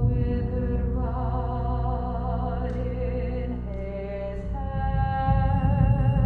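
A chamber ensemble of mezzo-soprano, alto flute, viola, double bass and percussion playing a slow, textural contemporary piece: held notes with vibrato over a low, rumbling drone. The upper notes shift pitch about a second in and again around four and a half seconds, when the low drone thins out.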